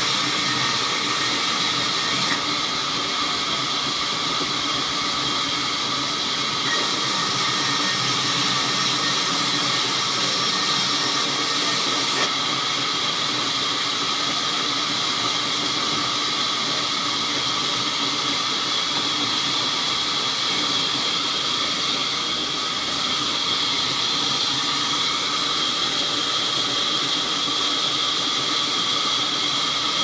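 Large vertical band saw running and ripping a red mahogany plank lengthwise into thin strips: a steady sawing hiss with several held tones in it, unbroken throughout.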